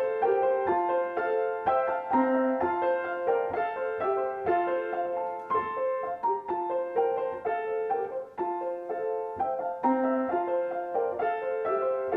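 Solo piano playing a gentle melody over a steady run of struck notes.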